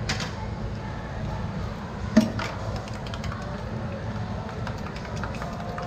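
Sharp clicks and knocks of an egg being cracked and stainless steel mixing bowls handled. The loudest is a single knock about two seconds in. Under them runs a steady low background hum.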